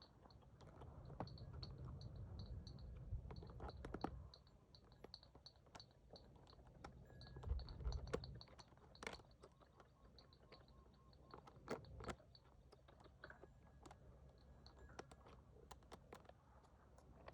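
Faint, irregular crunching and clicking of cutting tools paring a cow's hoof horn, with low rumbling handling noise in between.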